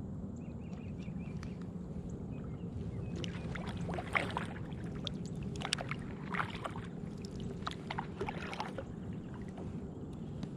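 Kayak paddle dipping and splashing in the water, a series of strokes from about three seconds in until near the end, over a steady low background noise.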